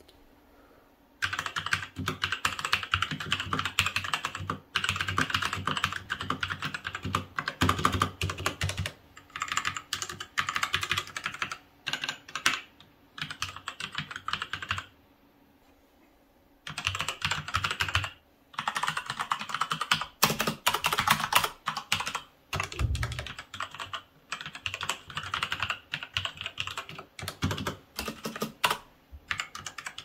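Typing on mechanical keyboards, Kailh Red switches against Cherry MX Brown switches: fast, continuous key clatter in two long runs, with a pause of under two seconds about halfway through.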